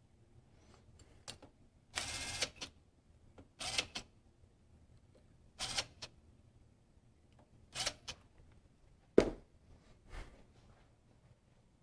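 Hands-on setup noises with the machine not cutting: several short hissing bursts, roughly one every two seconds, and a sharp knock about nine seconds in.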